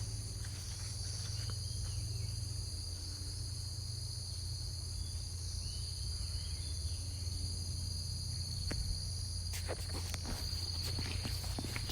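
Night insect chorus of crickets, a steady high-pitched trilling that never lets up, over a steady low hum. A few light knocks come near the end.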